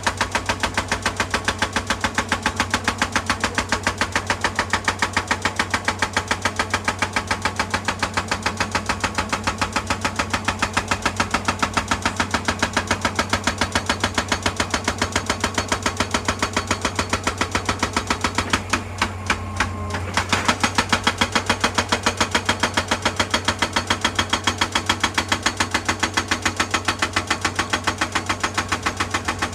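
Hydraulic rock breaker on an excavator hammering rock in a fast, even run of blows over the excavator's steady engine hum. The hammering stutters and stops briefly a bit past the middle, then starts again.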